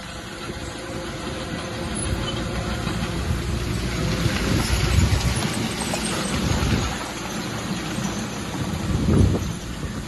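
Bulldozer's diesel engine running, with low rumbling swells about halfway through and again near the end.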